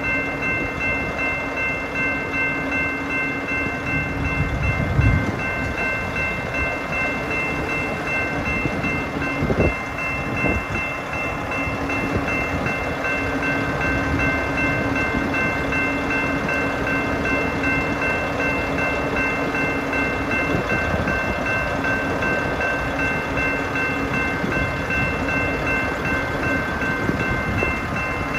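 Brandt road-rail truck rolling slowly on its rail wheels across a grade crossing, its diesel engine running under steady rail and wheel noise, with two heavy thumps about five and ten seconds in. Over it the crossing's electronic warning bell rings without a break.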